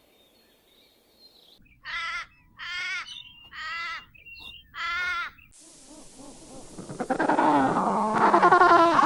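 Four short, harsh animal calls about a second apart, then from about halfway a louder, dense chorus of many animals calling over one another.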